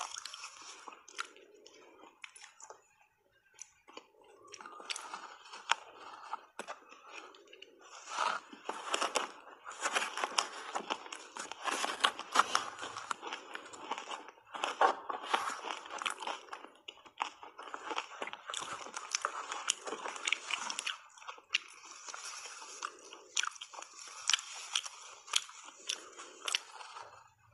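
Close-miked chewing of shaved ice coated in matcha powder: irregular crunching and crackling of ice between the teeth, with wet mouth sounds. It is quieter for a moment a few seconds in, then a dense run of loud crunches follows through most of the middle.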